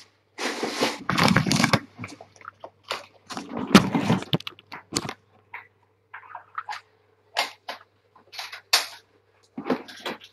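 Irregular rustling, scuffing and knocking of people moving about and handling things close to the microphone, loudest in the first few seconds, over a faint steady low hum.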